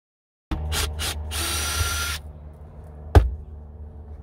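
Cordless DeWalt drill-driver backing out the subwoofer's mounting screws: two short spins, then a steady high whine for about a second. A single sharp knock follows, all over a low steady hum.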